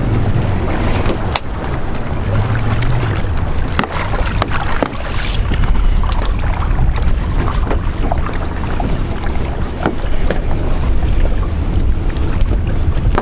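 Small fishing boat under way, its engine running under steady wind noise on the microphone and splashing water, while a wet lobster-pot rope is hauled over the gunwale by hand with scattered knocks and clicks.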